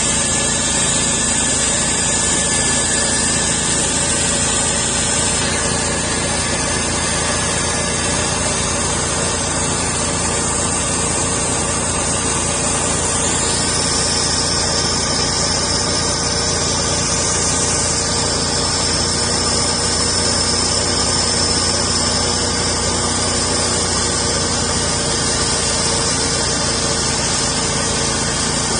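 Homemade sawmill's engine running steadily under load as it cuts through a spalted maple log, with a high whine joining about halfway through.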